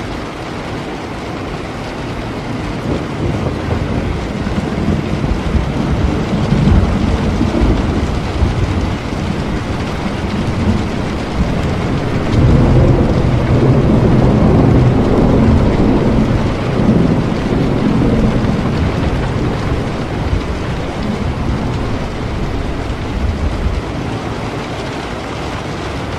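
Steady heavy rainfall with a long roll of distant thunder that builds about a quarter of the way in, rumbles loudest around the middle, then fades away.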